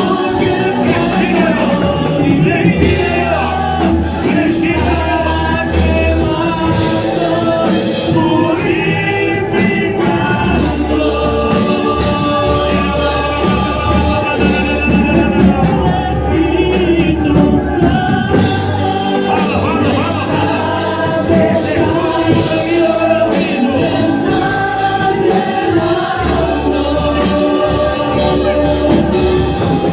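Gospel worship music: several voices singing over a band with long held bass notes and steady percussion.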